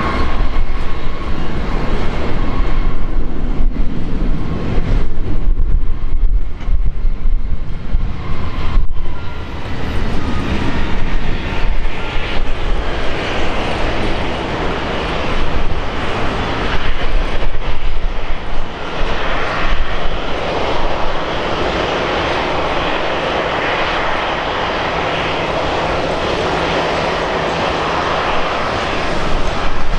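Twin-engine jet airliner climbing away at takeoff thrust: a loud, steady jet-engine roar with a heavy low rumble.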